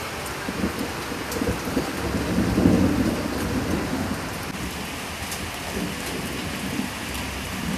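Steady rain falling, with a low rumble that swells and fades about two to three seconds in.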